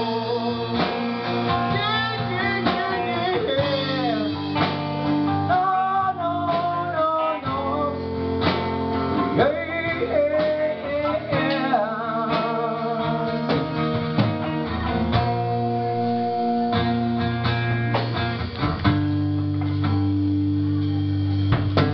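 Live acoustic guitar being strummed, with a voice singing over it.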